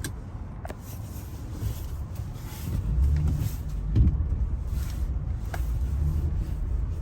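Car driving slowly on a snow-covered street, heard from inside the cabin: a low rumble of engine and tyres that grows louder about three seconds in, with a single thump about four seconds in.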